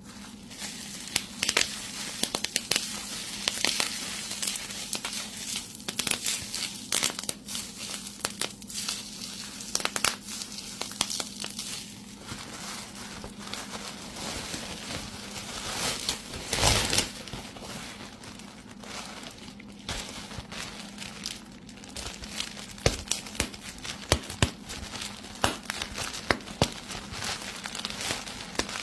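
Bubble wrap being squeezed and twisted in the hands, a long irregular run of sharp pops amid plastic crinkling, with a dense cluster of pops about two thirds of the way through.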